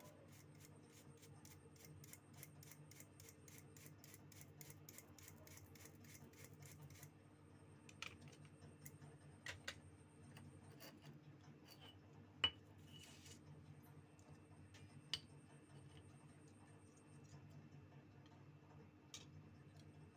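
Faint quick ticking strokes, about three to four a second, of small repair tools working over a water-damaged phone's circuit board while it is cleaned, followed by a few separate sharp clicks, the loudest about twelve seconds in. A low steady hum runs underneath.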